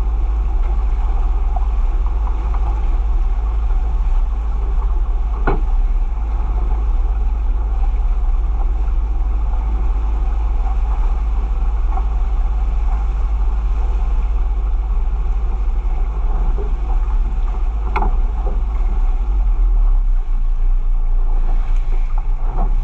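Small fishing boat under way at sea: a steady low drone with water rushing past the hull and wind on the microphone. Two sharp knocks stand out, one about a quarter of the way through and one about three-quarters through.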